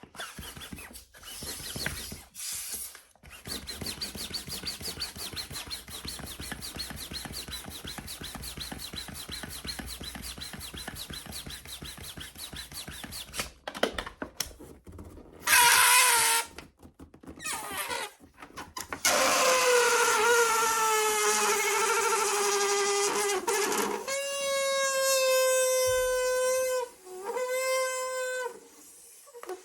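A foil balloon being inflated: a steady rushing hiss of air for the first half. Then, from about halfway through, air let out of it in loud, pitched squeals with a buzzy edge, some sliding in pitch and some held steady for several seconds.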